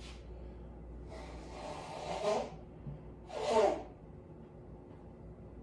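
A person blowing their nose twice, a longer blow and then a shorter, louder one, the nose running from hot sauce.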